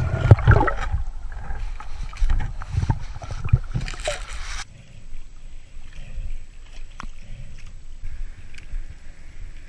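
Water noise with irregular gurgling surges, like bubbles and water moving past the microphone. It cuts off abruptly about halfway through, leaving a much quieter hiss.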